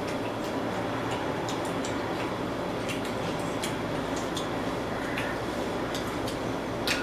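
Wet clicks and smacks of people chewing pizza and wings, coming irregularly over a steady hiss of room noise.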